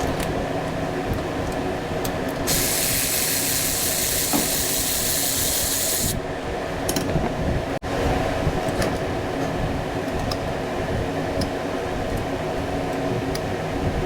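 A spray hissing for a little under four seconds, starting and stopping abruptly about two and a half seconds in, over a steady mechanical hum.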